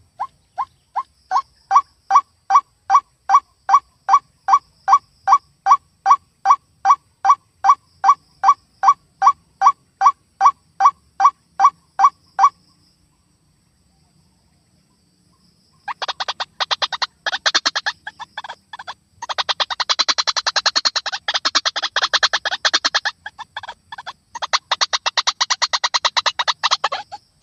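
White-breasted waterhen calling. First comes a steady series of evenly spaced single notes, a little over two a second, for about twelve seconds. After a pause of a few seconds comes a fast, harsh chattering run of croaking calls.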